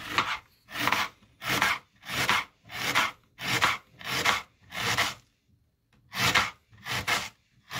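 Kitchen knife slicing a red onion on a plastic chopping board: a regular run of short rasping cuts, about one every two-thirds of a second, with a brief pause about five seconds in.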